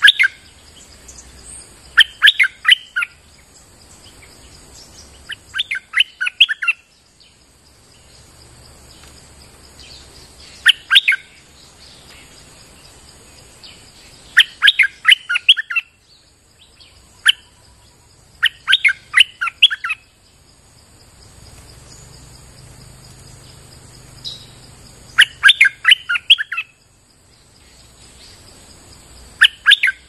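Caged bulbul (merbah lekir) lure bird singing loud, short phrases of quick notes, one phrase every three to four seconds, over a steady high insect drone.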